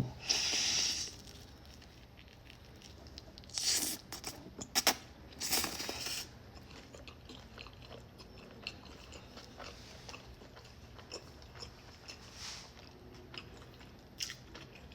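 Close-miked eating of buldak spicy noodles: a few loud slurps of noodles in the first six seconds, then quieter chewing with small wet mouth clicks.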